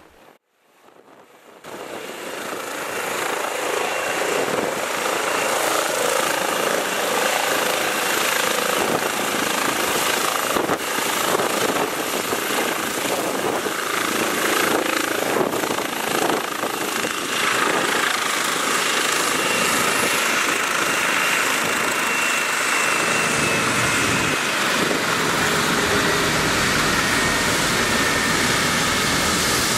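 Medevac helicopter landing: its rotor and turbine noise fades in over the first couple of seconds, then holds loud and steady as it comes down and settles on the landing zone, with a faint high whine over the rush.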